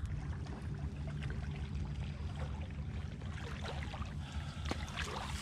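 Water sloshing and reeds swishing as a person wades through marsh water and pushes through stands of reeds, over a steady low rumble.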